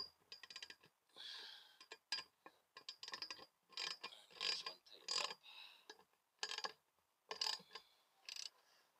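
Hand ratchet clicking in about ten short bursts of strokes as it tightens a bolt on a motorcycle crash bar's top bracket, opening with a sharp metallic clink.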